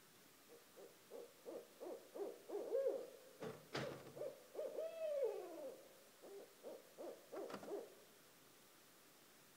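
A pair of barred owls calling: a run of quick hoots that speeds up, with a drawn-out hoot sliding down in pitch about five seconds in, the excited calling of a mating pair. A couple of sharp clicks come near the middle.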